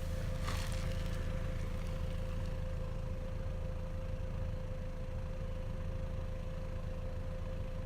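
Volkswagen Passat idling at the tailpipe: a steady low exhaust rumble, with a thin steady tone above it.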